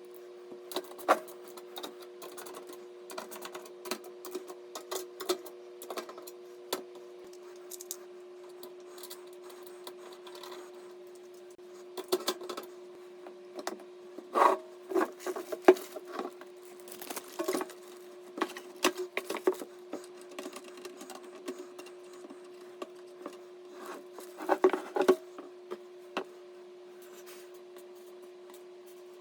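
Hands handling computer parts during a PC build: irregular clicks, taps and rubbing, busiest in the middle and near the end, over a steady hum.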